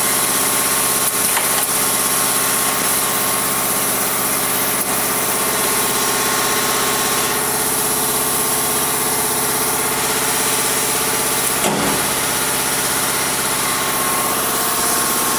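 Pertici ML124 mullion-cutting saw running steadily, a constant machine hum with an even hiss over it. A single short knock about twelve seconds in.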